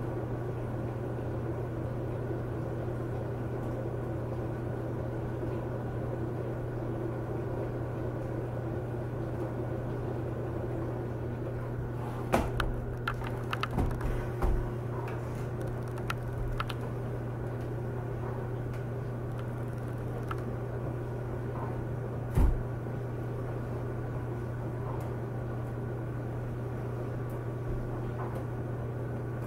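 Steady low hum with small clicks and taps from a screwdriver and tiny screws on a laptop screen bezel, bunched about twelve to fifteen seconds in, then one sharper knock about twenty-two seconds in.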